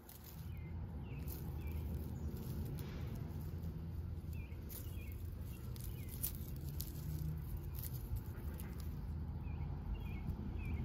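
Dry soil, roots and crispy dead ranunculus leaves crackling and rustling as the plant and its corm clump are worked loose and pulled up by hand. A bird chirps now and then in short runs of two or three notes, over a low steady rumble.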